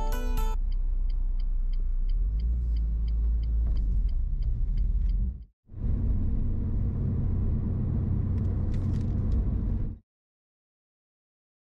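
Road and engine noise heard inside a moving car's cabin: a steady low rumble. Over it, for the first five seconds or so, a turn-signal indicator ticks about three times a second. The sound drops out briefly near the middle and cuts off to silence for the last couple of seconds.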